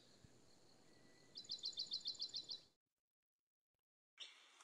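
A small bush bird calling: a quick run of about ten short, falling chirps a little over a second in, over faint outdoor background hiss. The sound then cuts to dead silence.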